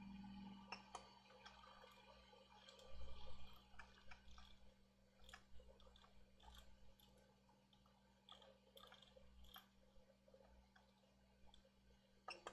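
Near silence: faint, irregular small clicks and ticks over a low steady hum, with a slightly louder cluster about three seconds in.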